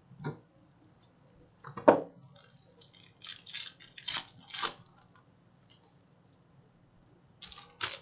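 Handling noise of opening a foil trading-card pack: a sharp knock about two seconds in, then the foil wrapper crinkling and tearing in a quick run of crackles, and a couple more sharp taps near the end as cards are set down on the box.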